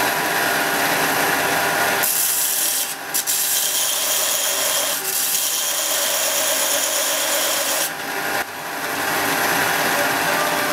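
Cocraft HBD 500 belt-and-disc sander running, a small metal piece ground against its 4×36-inch belt with a steady grinding hiss over the motor's whine. The grinding eases briefly about three seconds in and again near eight seconds, as the piece comes off the belt.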